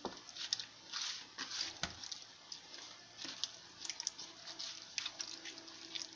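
Hands working a wet spice-and-lemon-juice marinade into raw chicken pieces in a plastic bowl: soft, irregular squishing with short wet clicks.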